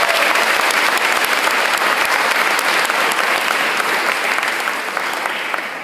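Audience applauding: many hands clapping in a dense patter that tapers off near the end.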